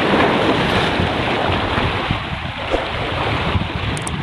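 Sea surf breaking and washing over shore rocks, a loud churning rush of water, with wind buffeting the microphone.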